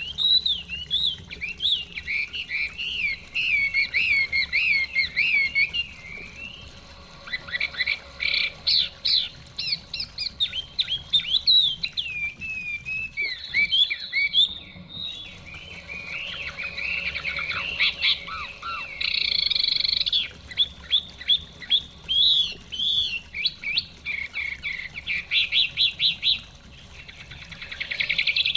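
Chinese hwamei singing a long, varied song of rapid whistled phrases that sweep up and down, broken by a few short pauses.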